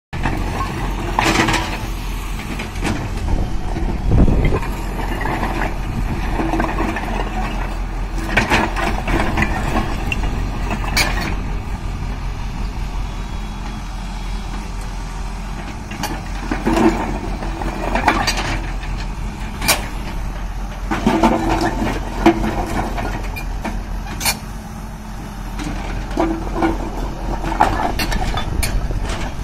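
Diesel engine of a Hyundai 140 crawler excavator running steadily while the machine works. Sharp clanks and knocks come a dozen or so times as the bucket handles broken concrete slabs.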